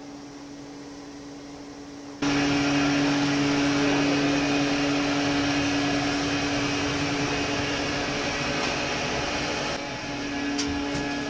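Steady mechanical hum with a hiss from factory machinery: a gas-fired oven and its overhead chain conveyor. It jumps sharply louder about two seconds in and eases slightly near the end, with two light clicks.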